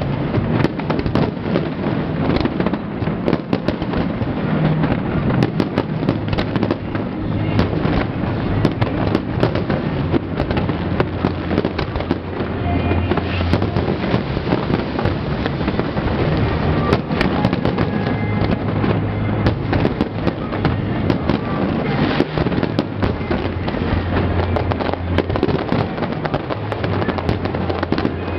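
Aerial fireworks bursting in rapid, continuous succession, a dense run of bangs and crackling, with music playing underneath.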